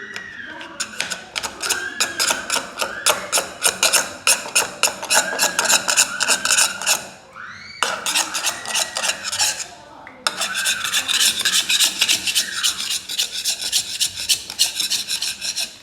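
Rapid rasping strokes of a hand tool working back and forth on hard material, about five strokes a second, stopping briefly twice.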